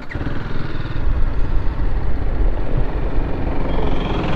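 BMW motorcycle engine picking up sharply under throttle as the bike moves off, then running steadily with a rapid, even low pulsing.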